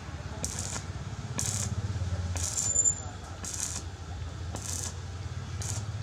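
Welding work on steel: short bursts of crackle about once a second over a steady low hum.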